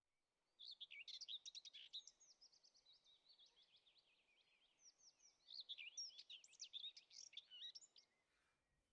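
A songbird singing faintly in quick runs of high chirps and trills: a lively burst about half a second in, softer twittering, then a second lively burst that stops about eight seconds in.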